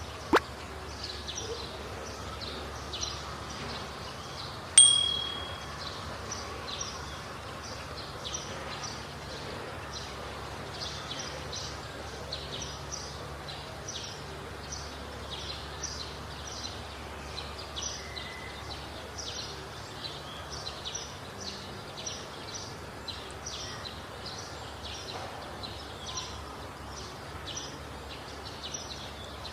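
A sound-effect ambience of rapid, irregular high tinkles over a low steady hiss, with a sharp click at the very start and a single bright ding about five seconds in.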